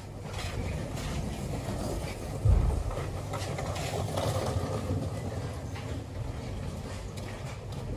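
Steady low hum inside an Aoimori Railway electric train standing at a station platform, with light scattered clicks and one louder low thump about two and a half seconds in.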